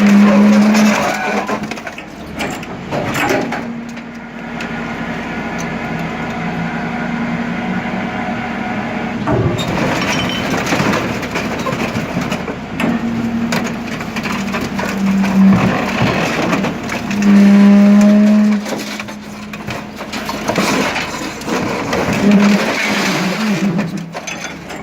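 Lefort hydraulic scrap-metal shear working: a steady hydraulic hum that swells loudly at several moments under load, with crunching, cracking and knocking of metal being cut and moved.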